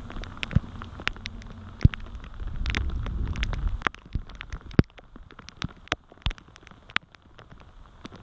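Heavy rain, with irregular sharp taps of raindrops striking close to the microphone. A low rumble under it during the first half cuts off about four seconds in, leaving sparser taps.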